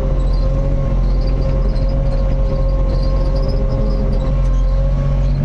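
Mini excavator's diesel engine running steadily: a constant low drone with a steady pitched whine over it.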